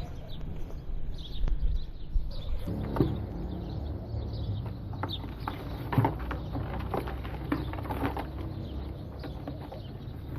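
Small birds chirping, over a low steady hum that starts about three seconds in, with scattered clicks.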